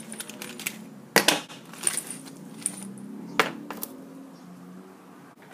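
Small hard objects clicking and clattering as a hand rummages through a pencil case and sets things down on a wooden desk: a string of sharp knocks, the loudest about a second in and again past the three-second mark.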